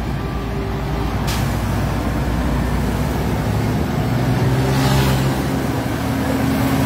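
Tractor-trailer trucks hauling shipping containers driving past: diesel engines running over the rush of tyres. A deeper engine hum swells from about halfway through as a second truck draws near.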